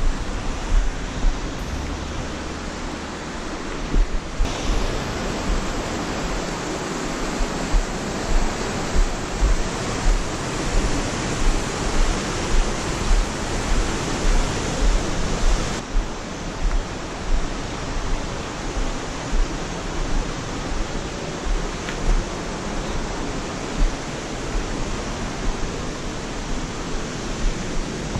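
A steady, even rushing noise, with low thumps about once a second from footsteps on a rocky downhill trail. The texture of the rush changes abruptly twice, about 4 seconds in and again near the middle.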